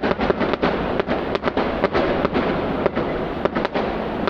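Fireworks going off in a continuous barrage, several sharp bangs and crackles a second.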